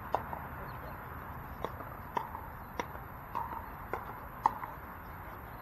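Pickleball paddles striking the ball: about six sharp pocks at irregular intervals over a steady background hiss, the loudest about four and a half seconds in.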